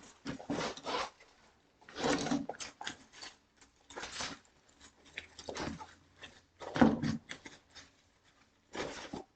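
Rustling and knocking from things being packed into a bag, in short irregular bursts.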